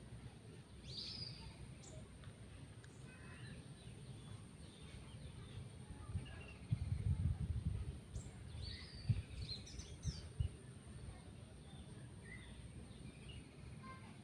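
Birds chirping in short calls in the background. In the middle there is a low rumble and a few sharp low thumps, the loudest sounds here. A faint steady high whine runs underneath.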